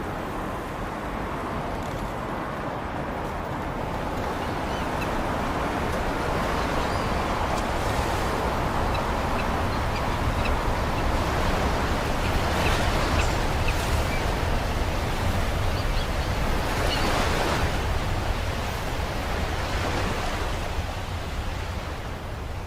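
Ocean waves breaking in a continuous rush of surf, with wind. The rush slowly swells over several seconds and eases off near the end.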